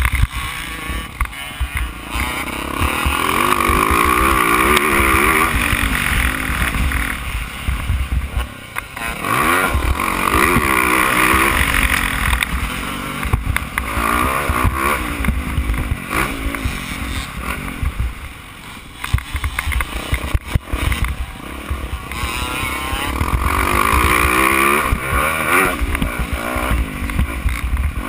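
Yamaha YZ450F motocross bike's single-cylinder four-stroke engine racing on a dirt track, revving up hard in long pulls and backing off for corners, heard up close from a bike-mounted camera with a low rumble of wind on the microphone.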